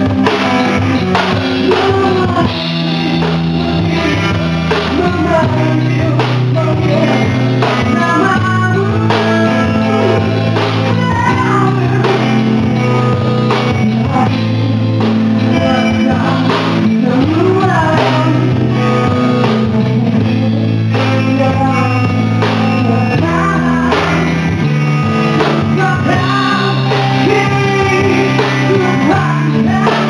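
Rock band playing live: lead vocal sung over guitars, bass guitar and drum kit.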